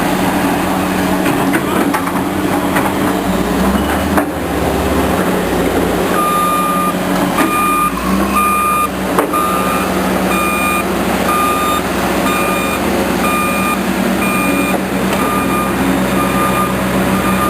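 A heavy diesel construction machine running steadily, with its back-up alarm starting to beep about six seconds in, a single repeated tone about one and a half times a second as the machine reverses.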